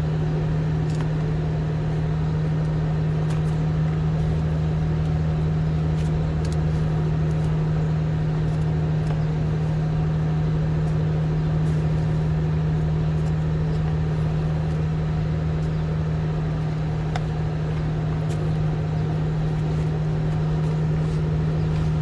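A steady motor hum at a constant pitch, with a few faint clicks over it.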